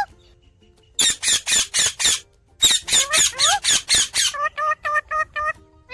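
Indian ringneck parakeet screeching: about a second in, two runs of rapid, rising calls at about five a second, then a run of shorter, flatter notes.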